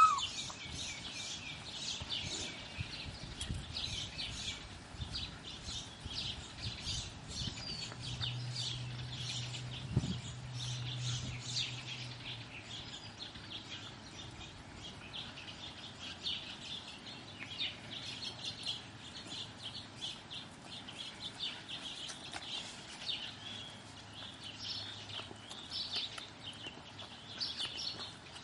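Many small birds chirping continuously in the background. A faint low hum comes in for a few seconds midway, with a single knock about ten seconds in.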